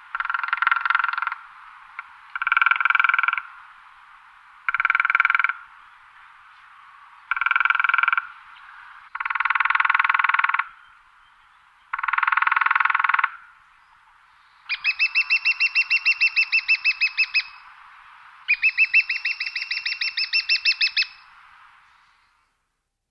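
Woodpecker drumming: eight rolls of rapid bill strikes on wood, each one to two and a half seconds long, with about a second between them. The last two rolls are the longest, with the separate strikes plainly distinct.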